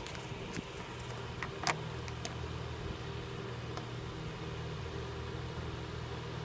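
Steady low hum in the room, with a few light clicks and taps from papers and highlighters being handled on a desk. The sharpest click comes about a second and a half in.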